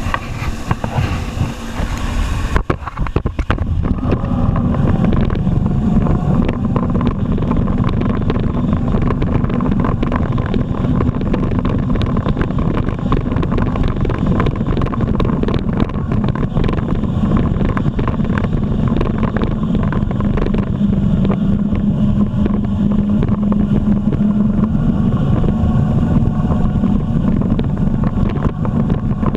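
Jet ski engine running steadily at speed, under wind noise on the microphone.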